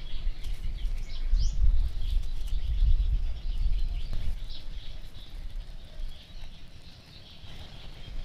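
Birds chirping in short scattered calls, with a few quick rising notes in the first two seconds, over a low rumble that dies away after about four seconds.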